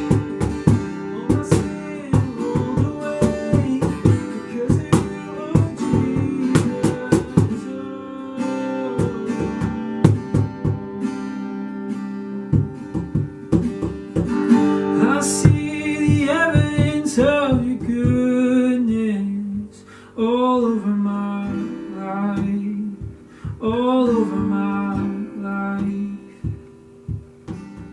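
Worship band music led by strummed acoustic guitar, with sharp beats through the first half. In the second half a melody line bends and slides over the held chords, likely a wordless vocal.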